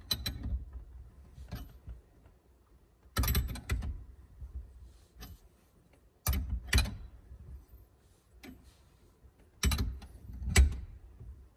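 Hand ratchet clicking in four short bursts, about three seconds apart, as it turns the forcing screw of a steering-column lock plate compressor, pressing the spring-loaded lock plate down.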